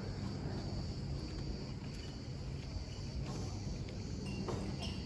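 Steady, high-pitched insect chorus shrilling without a break, over a low background rumble.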